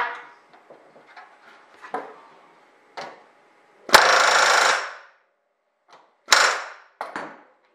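Pneumatic rivet gun back-riveting the aluminium false spar against a steel block, in one hammering burst of about a second, then two shorter bursts near the end. A few light clicks come first.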